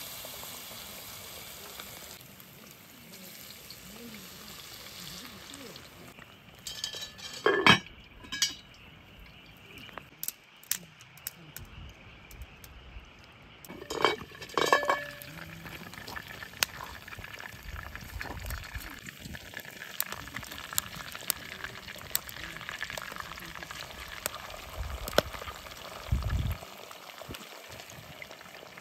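Hot oil sizzling as battered food deep-fries in a cast-iron Dutch oven over a wood fire, with small crackles and pops. A few metal clanks about a quarter and half of the way through come from the iron lid being handled.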